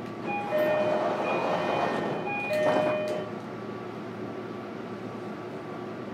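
Two-note door chime inside a JR Kyushu 305 series train car, a short high note followed by a longer low one, sounding twice as the doors slide shut with a thud near the end. A steady hum of the stopped train follows.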